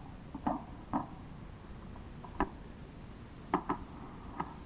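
A handful of short, sharp pops at irregular intervals, over steady tape hiss on an old field recording.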